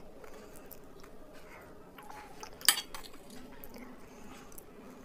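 Eating at a loaded plate: quiet food-handling and mouth sounds, with one sharp clink of tableware about two and a half seconds in.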